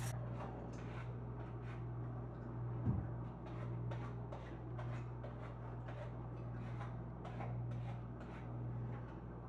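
A steady low hum with many faint, irregular clicks and ticks, and one louder dull thump about three seconds in.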